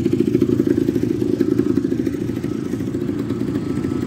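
Quad bike (ATV) engine running steadily with a fast, even throb.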